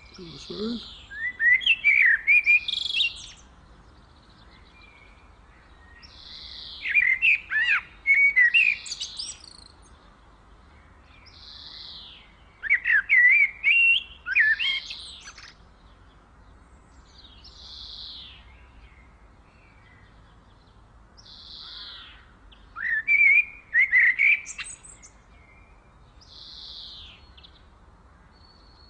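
Songbirds singing: loud bursts of rapid, twittering chirps lasting about two seconds, four times, with short, softer high calls repeated every few seconds in between.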